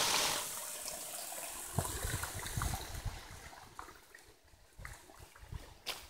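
Small waterfall splashing onto rocks: a steady rush that is loud at the start, drops off within the first half second, then fades to faint. Scattered light clicks and low thumps sound over it.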